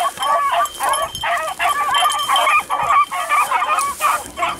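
Beagles baying, several hounds giving short, overlapping yelping cries in quick succession.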